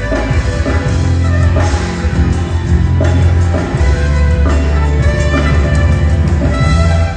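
Live band playing an instrumental passage of a pop-rock song, with heavy sustained bass and regular drum hits.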